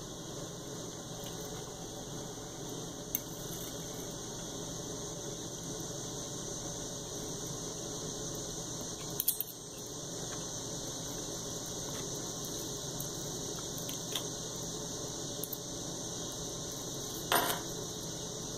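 Knife and fork clicking and scraping lightly on a dinner plate now and then, a handful of short clicks with the loudest near the end, over a steady background hiss.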